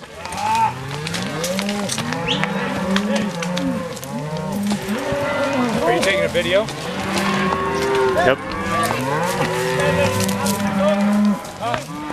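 A herd of cows mooing, many calls overlapping without a break.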